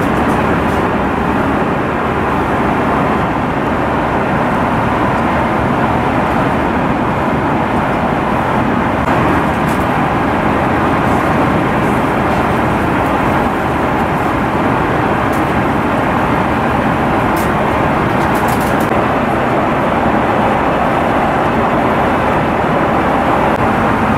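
Steady noise of jet engines and rushing air heard inside the cabin of an Airbus A330-300 airliner, level and unchanging throughout.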